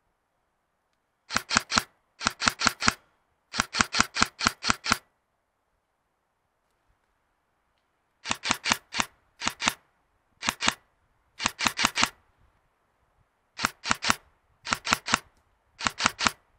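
Airsoft gun firing in short bursts of sharp snapping shots, about seven a second, with pauses of a second or more between bursts.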